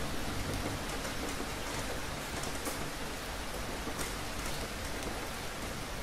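Steady rain falling, a dense even hiss with scattered louder drop splashes.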